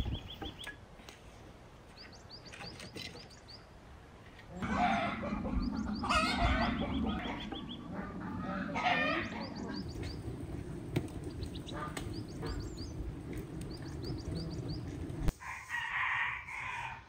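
A rooster crowing and hens clucking, with small birds chirping in short runs in between. The loudest calls come about five seconds in.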